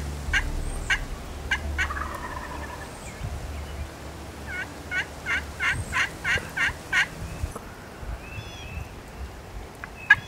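Wild turkeys calling: a few scattered short notes, then a steady run of about eight short, evenly spaced notes, roughly three a second, in the middle.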